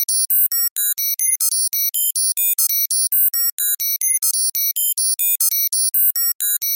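Synthesized 'computer processing data' bleeps: short, high electronic tones in rapid succession, about five a second, each at a different random pitch, in the classic sci-fi computer style.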